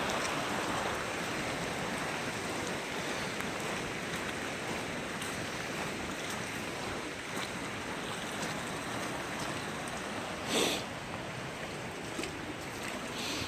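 Floodwater rushing in a steady flow, with one short knock about ten and a half seconds in.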